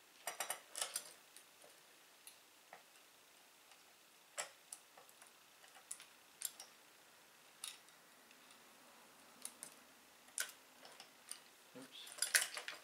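Light metallic clicks and clinks of steel M8 nuts and washers being handled and fitted onto a threaded rod. Single scattered ticks, with quick little clusters right at the start and again near the end.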